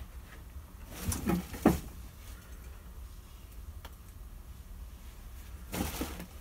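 Quiet room with a steady low hum, broken by a few faint handling sounds: a short one about a second in and a brief rustle near the end.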